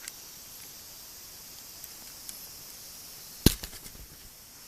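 A single sharp crack or knock about three and a half seconds in, followed by a few fainter clatters, over a steady high hiss.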